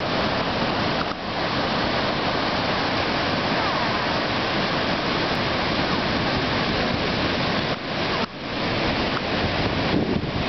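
Ocean surf breaking and washing up onto the beach: a steady rush of noise.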